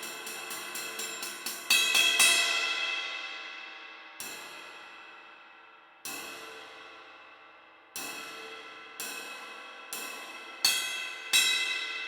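20" Zildjian Oriental Crash of Doom cymbal being played. It starts with quick light taps, then three loud crashes close together about two seconds in, followed by single strikes every one to two seconds, each left to ring and fade.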